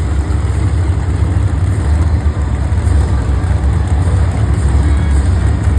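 Monster truck's supercharged V8 engine running hard, loud and steady with a deep low-pitched sound.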